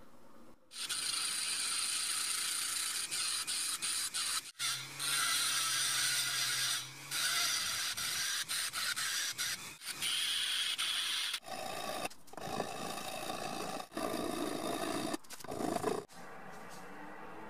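A handheld rotary tool with a small burr grinding the brass pommel cap of an axe handle: a high, scraping whir that stops and starts many times. For the last few seconds the grinding sounds lower.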